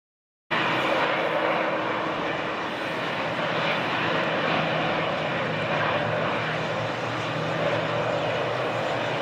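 Boeing 737's turbofan engines running steadily at idle thrust as the airliner taxis: an even jet hiss with a faint low hum underneath. The sound cuts in after about half a second of silence.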